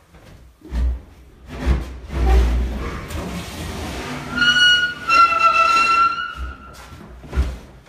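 Granite countertop slab set down on wooden base cabinets: a few low thuds, then a high-pitched squeal lasting about two seconds as the heavy stone is slid into place.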